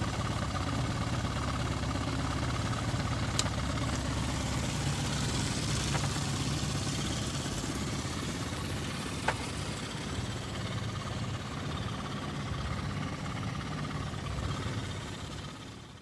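25 hp outboard motor running steadily, pushing a jon boat along at cruising speed, with a low hum under a rush of water and wind noise. Two faint clicks sound about 3.5 and 9 seconds in, and the sound fades out near the end.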